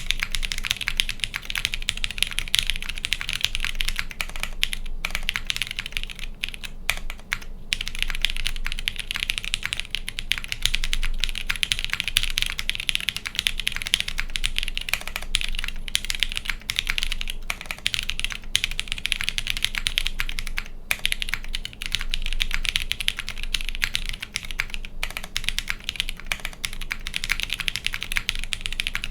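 Fast continuous typing on a custom mechanical keyboard with Cherry MX Brown tactile switches fitted with Kailh Brown stems, an o-ring mounted aluminium half plate, GMK doubleshot ABS keycaps and no sound dampening: a dense run of key clacks with a few brief pauses.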